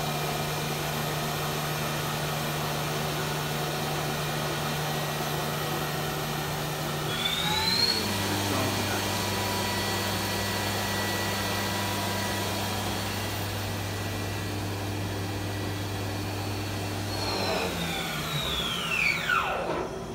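Mazak VCN 700D vertical machining center spindle running with a steady hum. About seven seconds in it speeds up with a rising whine and holds a steady higher speed. Near the end it winds down with a falling whine.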